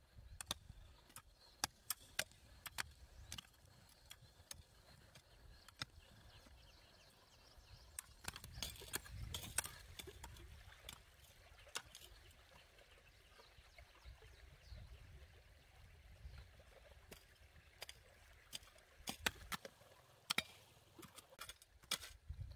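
Hand hoes chopping into dry soil: faint, irregular strikes and scrapes, with a busier stretch of strokes about halfway through.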